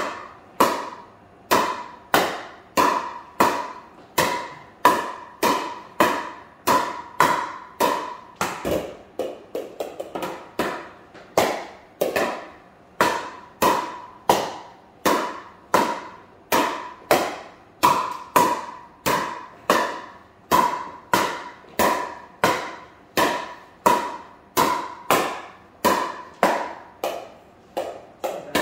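Rapid, regular pops of a plastic pickleball struck by a paddle, about one and a half hits a second, each with a short ringing echo in a hard-floored room. The pace stays even throughout, with a quicker flurry of lighter taps about a third of the way through.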